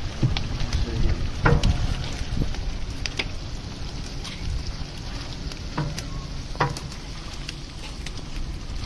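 Food frying with a steady sizzle in a large cooking pot being stirred. Under it runs a low, steady rumble, and a few scattered knocks cut through, the loudest about a second and a half in.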